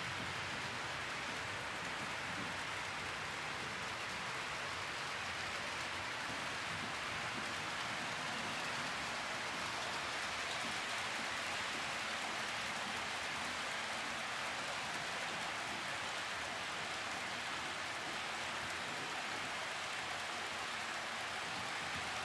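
Several model trains running on the layout's tracks at once: a steady, even hiss of wheels rolling on the rails.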